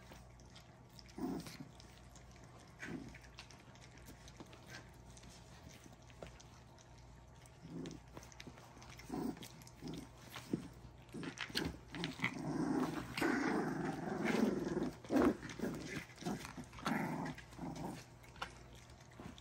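Three-week-old puppies making small dog noises as they wrestle and mouth each other. The sounds are short and few at first and come thick and fast for a few seconds past the middle.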